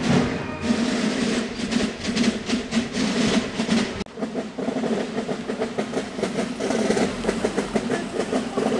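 Carnival drum band (semonce) drumming a fast, steady rhythmic beat.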